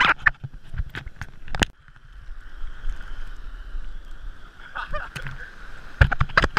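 Surf water sloshing and splashing against a waterproof action-camera housing, with a steady muffled hiss and sharp knocks as waves and spray hit the case, several near the start and a cluster about six seconds in.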